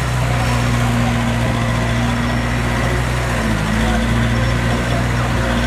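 Heavy-machinery diesel engine running steadily, its note shifting slightly about three and a half seconds in.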